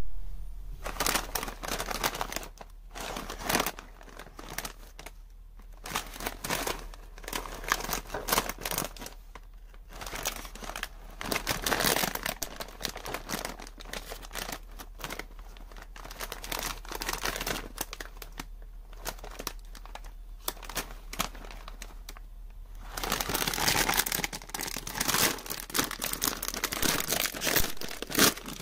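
Plastic snack bag of Calbee Sapporo Potato crinkling in the hands as it is picked up and turned over, in irregular spurts with short pauses. Near the end a louder, denser stretch of crinkling and tearing as the bag is pulled open.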